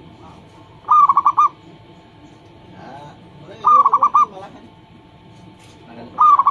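Zebra dove (local perkutut) singing: a short phrase of four quick, rolling coos, repeated three times about every two and a half seconds, the third starting near the end. Fainter, lower calls sound between the phrases.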